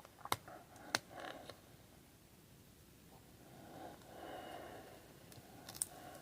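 Faint eating sounds at a table: two sharp clicks in the first second, then a soft faint rustle about four seconds in, as crab legs are handled and eaten.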